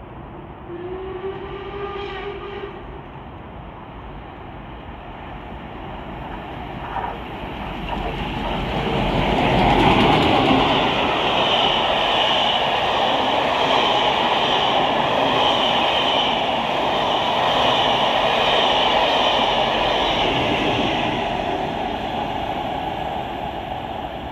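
LMS Stanier Black 5 4-6-0 steam locomotive with a train of coaches passing through at speed. A whistle sounds for about two seconds near the start. The rumble then builds to its loudest about ten seconds in as the engine passes, and the coaches follow with a steady rush and wheel clatter that fades near the end.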